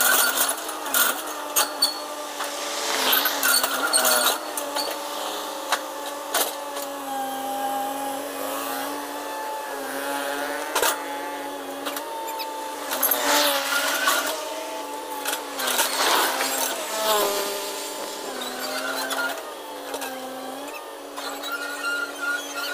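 Caterpillar 320 hydraulic excavator's diesel engine running under load with a whining drone that rises and falls in pitch as the machine tracks and moves its boom, with sharp metal clanks and knocks scattered throughout.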